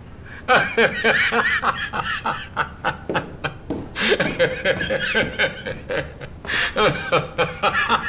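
A man laughing loudly in quick, broken bursts, starting about half a second in, with a short pause near three-quarters of the way through.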